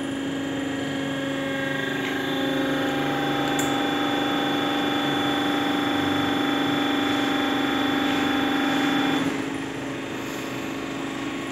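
Hydraulic pump of a small plastic injection moulding machine running under load with a steady whine. It grows louder about two seconds in and drops away about nine seconds in, with a single click in between.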